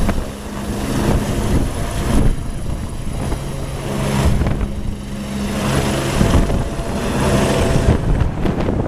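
Air ambulance helicopter flying low overhead: a steady rotor beat over a low engine drone, swelling and fading every couple of seconds as it circles.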